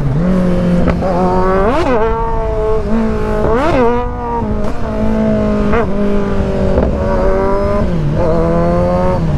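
Kawasaki Z900's inline-four engine running at road speed under a rush of wind. Its pitch jumps up and back down sharply twice, about two and four seconds in, and sags briefly near the end.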